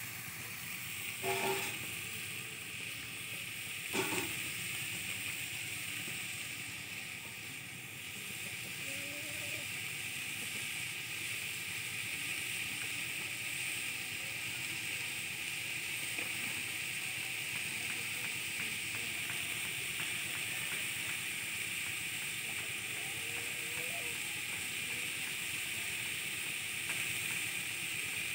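Marinated goat meat frying in a large pot of hot margarine over a wood fire, a steady sizzle as the meat sears. There are two short knocks in the first few seconds.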